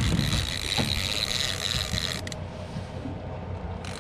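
Wind rumbling on the microphone, with a faint, steady high whine that stops about two seconds in and comes back near the end.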